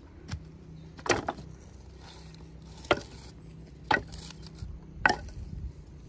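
Dry firewood knocking as pieces are dropped onto a pile: four sharp wooden knocks, one to two seconds apart.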